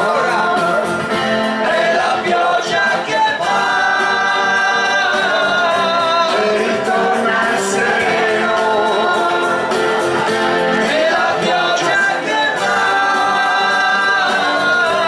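A mixed group of men and women singing an Italian song together into microphones, amplified over a PA, with instrumental backing.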